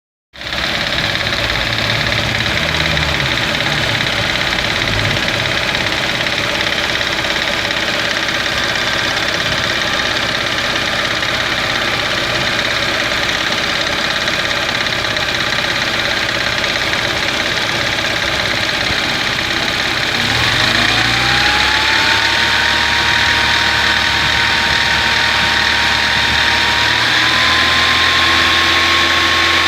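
Ford Escort/Orion car engine running with a noise of unknown origin that the owner cannot locate, although the engine runs and idles normally. About two-thirds in, a whine rises in pitch and settles, then steps up a little again near the end.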